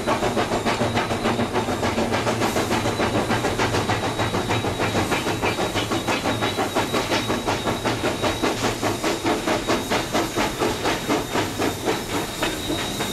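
China Railways JS class 2-8-2 steam locomotive working a freight train, its exhaust chuffing in an even rhythm of about four to five beats a second.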